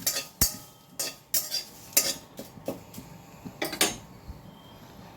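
A spatula scraping and clinking against a pan in irregular strokes, stirring bay leaves as they dry-roast.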